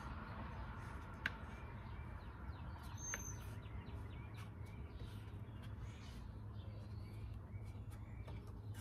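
Faint birds chirping over a steady low outdoor hum, with two light clicks, about one and three seconds in.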